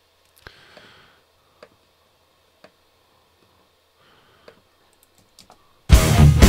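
A few soft computer mouse clicks. Near the end, a loud drum-kit mix starts playing back.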